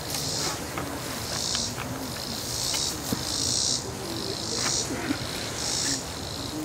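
Outdoor insect chorus: a high, rasping buzz that comes in pulses of about half a second, repeating roughly once a second.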